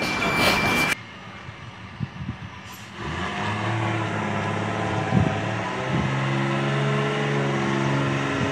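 Loaded Mercedes-Benz dump truck's diesel engine pulling under load, a steady engine note that comes in about three seconds in and steps up slightly in pitch about halfway through. For the first second, music and a truck's reversing beeper.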